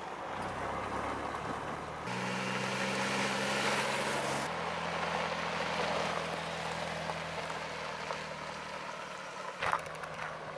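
Vehicle engines running, with tyre noise on a gravel road, in short clips cut together. A log skidder's diesel engine is heard first; from about two seconds in, a Jeep Wrangler drives past on gravel. The sound changes abruptly at each cut.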